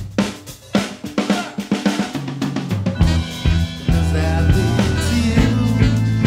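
A live band's drum kit plays alone, snare, bass drum and rimshot strokes, for the first two to three seconds. Then the bass and the rest of the band come in together.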